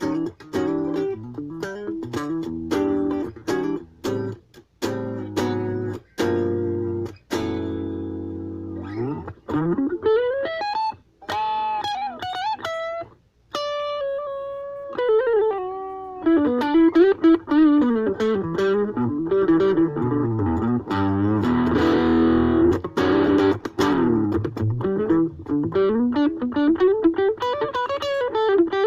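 Ibanez AXS42 electric guitar, fitted with a vintage capacitor, played through an amp. Repeated picked chords for the first eight seconds or so, then single-note lead lines with string bends and vibrato.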